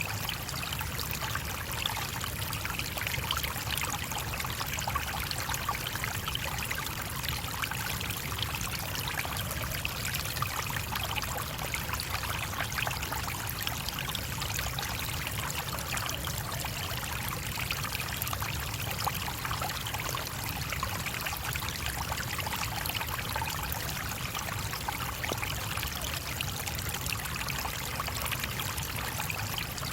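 Small stream flowing over stones, a steady babbling and trickling of water.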